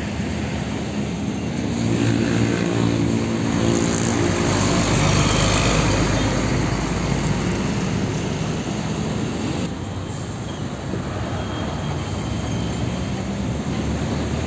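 Diesel engine of a Hino tanker truck running as it drives past close by, growing louder over the first few seconds and easing off after it has gone by. Near the end another truck's engine rumbles as it approaches.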